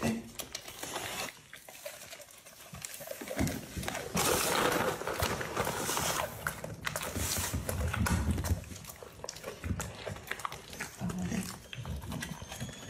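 An emaciated pit bull-type dog sniffing along the floor and chewing meat treats, in uneven snuffling and munching bursts, loudest in the middle.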